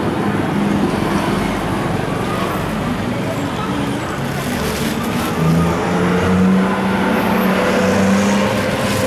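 Busy street ambience: steady road-traffic noise with engines running and voices in the background, growing a little louder past the middle.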